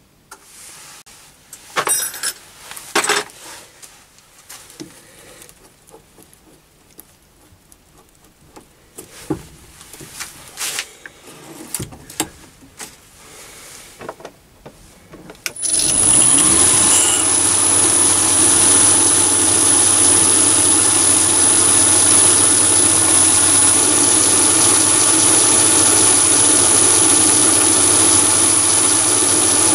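Mini lathe: scattered clicks and knocks of tooling being handled, then about halfway through the motor starts and runs steadily with a high-pitched whine, spinning a metal rod while a drill in the tailstock chuck bores into its end.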